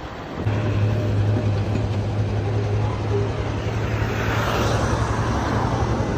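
Roadside traffic: a motorcycle rides past about four seconds in, over a steady low hum.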